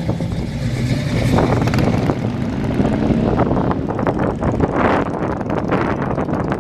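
A 1970s Chevrolet Nova's engine running with a steady low rumble as the car drives off, followed by motorcycle engines as the bikes approach near the end.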